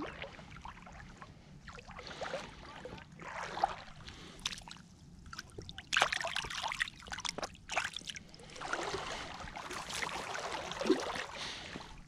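Shallow lake water splashing and sloshing in irregular bursts as hands hold a pike in the water and release it, with the sharpest splashes about six seconds in.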